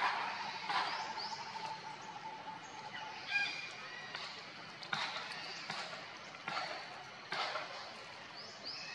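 Outdoor woodland ambience: birds giving short high chirps and whistles, including a few quick rising calls near the end, over irregular short rustling noises.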